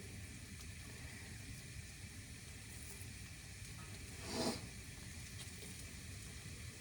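Onion frying in a pan: a faint, steady sizzle, with one brief louder sound about four and a half seconds in.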